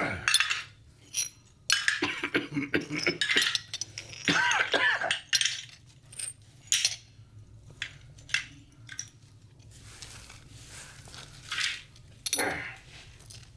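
Pieces of a broken ceramic plate clinking and scraping against each other as they are gathered up. The clinks come irregularly, a few of them ringing briefly.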